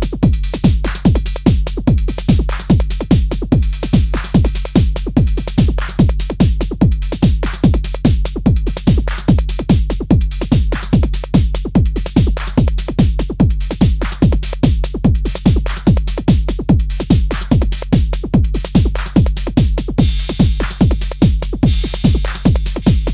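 Arturia DrumBrute analog drum machine playing a steady looping beat: pitch-dropping kick drum hits about twice a second, with quicker hats and percussion clicks between them. About 20 seconds in, a brighter hissing cymbal or noise layer comes in on top.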